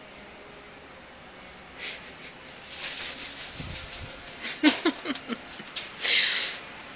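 A cockatoo making short, harsh, noisy calls beginning about two seconds in. There is a low thump about halfway, and a louder, longer harsh call about a second before the end.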